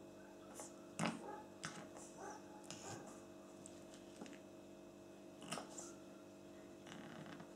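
Scattered light taps and scuffles of a Pekingese puppy's claws on a linoleum floor as it plays, with one sharper knock about a second in, over a steady low hum.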